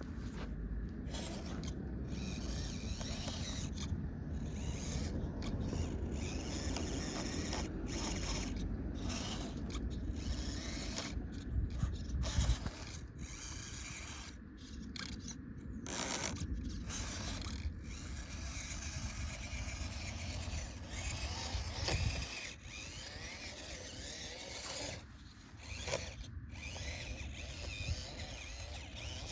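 Off-road vehicle driving over loose ground, with continuous mechanical running noise and scraping from tyres that slide without gripping, under a heavy low rumble.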